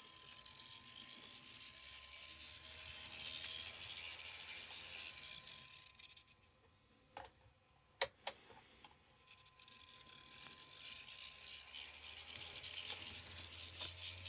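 Kato N-scale EF64 1000 model locomotive running on track, its motor and gears whirring with the abnormal noise that the owner says is still there after Kato's repair. The whir grows as the locomotive comes near, fades about six seconds in and builds again from about ten seconds. A few sharp clicks come around seven to eight seconds in, the loudest about eight seconds in.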